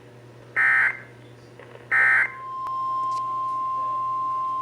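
Emergency Alert System end-of-message code: the last two of three short, harsh digital data bursts. About two seconds in they give way to a single steady alert tone of about 1 kHz, the 1050 Hz weather warning tone that starts the next severe thunderstorm warning.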